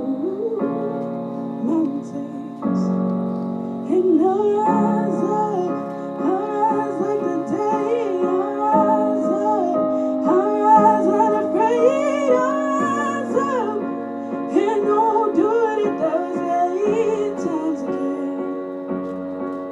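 Slow music: a woman singing a melody over sustained keyboard chords that change every few seconds.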